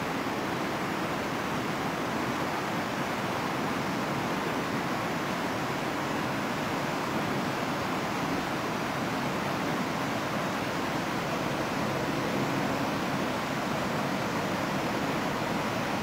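Steady rushing of a fast mountain river running over a stony bed: an even, unbroken roar of water.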